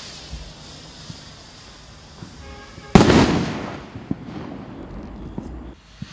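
Firework rocket bursting in the air with one sharp bang about three seconds in, fading over a second or so, followed by a few scattered small pops.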